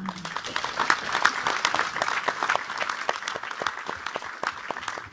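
Audience applauding: a dense clatter of many hands clapping that thins a little toward the end.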